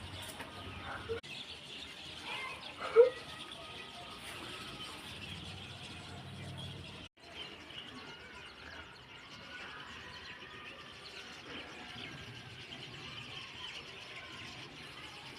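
Many small birds chirping at once in a dense, overlapping chorus. A short, much louder sound about three seconds in, and the sound drops out for an instant about seven seconds in.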